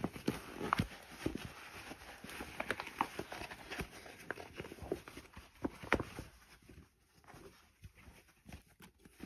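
Coonskin fur, leather and fleece lining of a trapper hat being handled and turned over: soft rustling with irregular taps and small knocks, busier for the first six seconds and sparser after.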